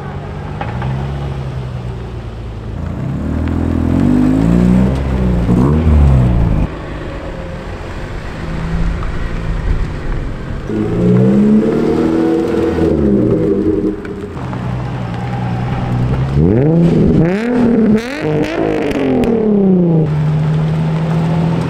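Engines of Japanese performance cars revving as they accelerate away, one car after another. There are three loud passes, each rising in pitch. The first two cut off abruptly. The last is a quick run of rising revs that falls away into a steady engine note.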